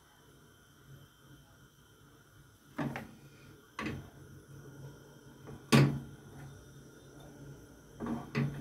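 A few short knocks and clinks of a frying pan on the gas stove's grate and a metal ladle against the batter bowl while crepe batter is spread in the pan, the loudest about six seconds in, over a low steady hum.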